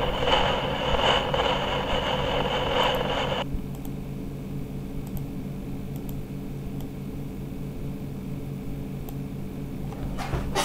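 Hissing noise from a clip playing on the computer for about three and a half seconds, cutting off suddenly; then only a steady low hum of a computer fan.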